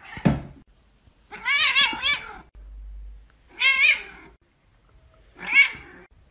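A short thump just at the start, then a domestic cat meowing three times, about two seconds apart. Each meow is drawn out and wavers up and down in pitch, and the first is the longest.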